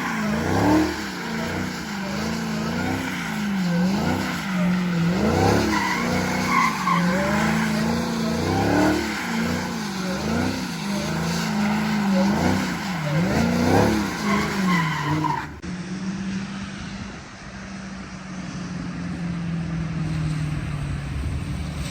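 Dodge Hellcat's supercharged V8 revving up and down over and over as the car slides, with tyre squeal on the wet road. About fifteen seconds in the sound changes abruptly to a quieter, steadier engine note.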